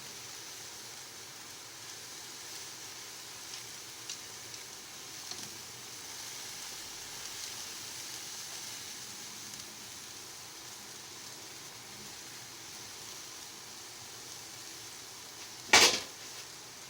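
Pot of cauliflower boiling on the stove with a steady hiss and a few faint ticks, and one loud, sharp clack near the end.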